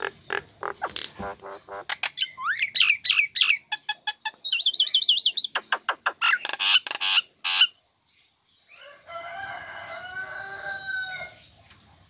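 Female common myna calling: a rapid run of sharp clicks and whistled notes, rising whistles and a fast warbling trill. After a short pause about eight seconds in, a softer gurgling chatter follows.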